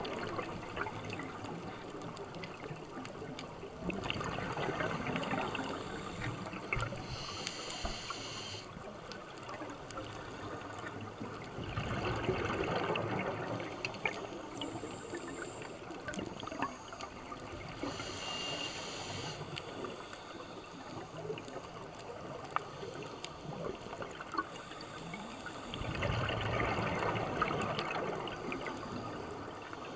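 Scuba regulator breathing heard underwater: long bubbling exhalations about 4, 12 and 26 seconds in, and two shorter high hissing inhalations between them. A constant fine crackle of small clicks runs underneath.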